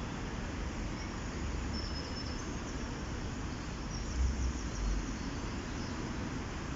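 Steady rush of flowing river water with faint, high bird chirps over it, and two brief low rumbles about four and five seconds in.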